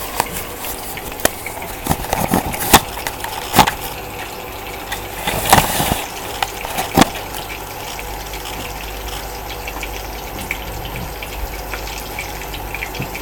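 Oil heating in a frying pan: a steady sizzling hiss with several sharp pops and clicks in the first half.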